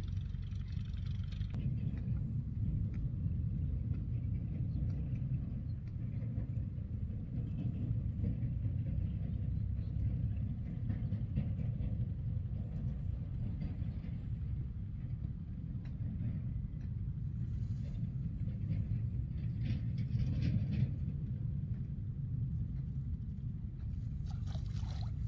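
A steady low rumble, with a few faint brief rustles about three-quarters of the way through and again near the end.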